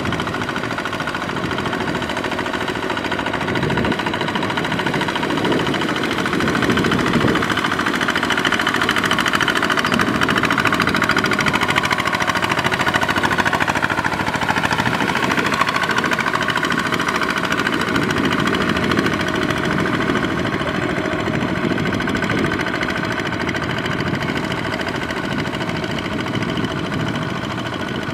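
Walking tractor's single-cylinder diesel engine running steadily under load as its cage wheels churn through a flooded rice paddy, a little louder in the middle.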